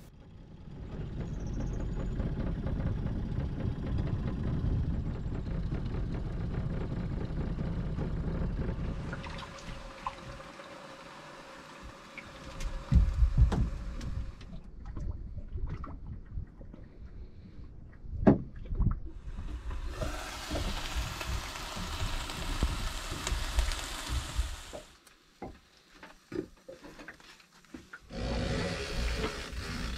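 Water and wind noise around a small boat, changing abruptly several times, with a few sharp knocks about 13 and 18 seconds in.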